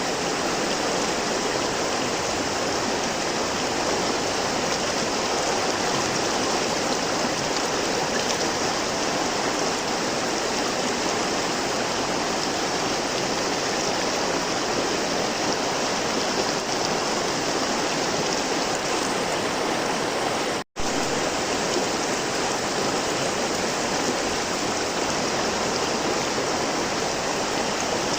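River water flowing steadily over rocks, an even rushing sound. It cuts out for a fraction of a second about three-quarters of the way through, then carries on unchanged.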